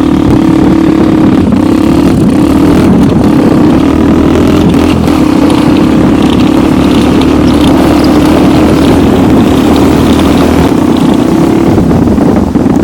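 Homemade snowmobile's engine running steadily under load while riding, with a few sharp knocks about one and a half and five seconds in.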